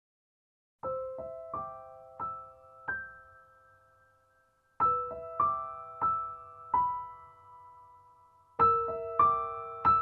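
Background music: a slow piano melody, single notes struck in three short phrases, each note ringing out and fading, starting about a second in.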